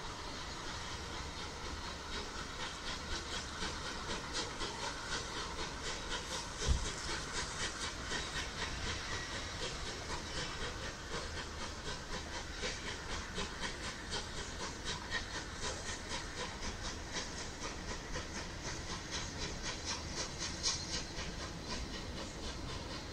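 Steam locomotive working a train at a distance: a hissing, steady rhythm of exhaust beats. One sharp thump about seven seconds in.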